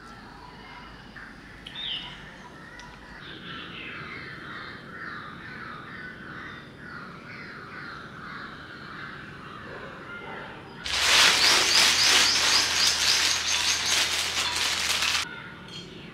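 Birds chirping in the background, short repeated notes. About eleven seconds in, the plastic bag around a block of stoneware clay crinkles loudly for about four seconds as it is handled.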